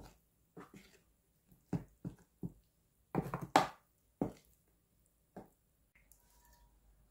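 A metal spoon clinking and scraping against a clear plastic container about ten times at an uneven pace while stirring tempura batter of frying powder and water. Near the end comes a faint trickle of cooking oil being poured into a wok.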